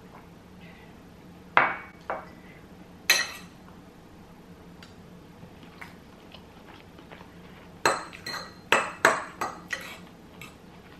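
A metal fork clinking against a bowl of couscous: three single clinks in the first few seconds, then a quick run of about six clinks near the end.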